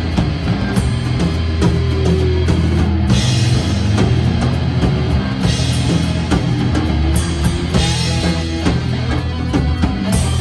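Live band playing an instrumental rock tune: a drum kit with several cymbal crashes, electric guitars, bass guitar and horns, with no singing.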